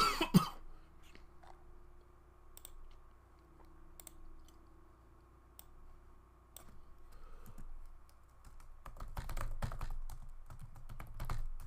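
Computer keyboard being typed on: a sharp knock at the very start, scattered single keystrokes, then a run of fast typing from about nine seconds in.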